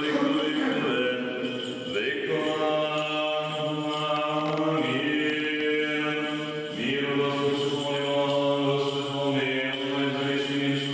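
Orthodox church chant sung in long drawn-out notes, holding each pitch for a second or more and sliding up to a new note a couple of times.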